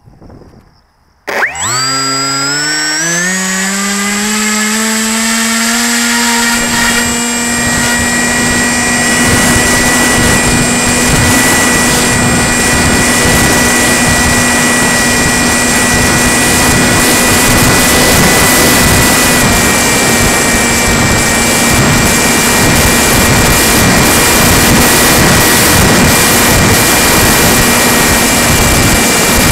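RC plane's motor starting up suddenly about a second in, its whine rising in pitch for several seconds as it spools up, then running steadily at high speed with a constant pitch.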